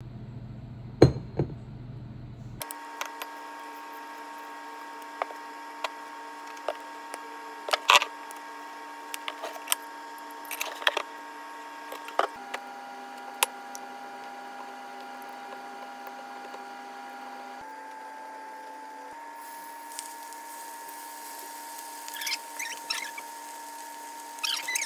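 Scattered clicks and taps over a steady hum of several tones that shifts in pitch a few times. In the last few seconds, seasoned fish frying in hot oil in a pan, crackling and popping.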